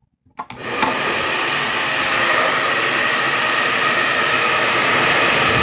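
A small motor-driven blower running steadily with an even whooshing whir. It switches on abruptly just under half a second in and cuts off right at the end.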